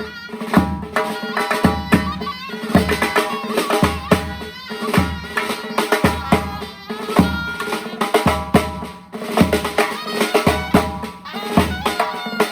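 Surnay, the Uzbek double-reed shawm, playing a sustained folk melody over a steady drum beat.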